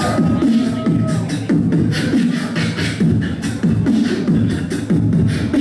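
A beatboxer performing live through a microphone and PA: fast hi-hat clicks with a deep, falling kick about once a second, and a held whistle-like tone in the first second.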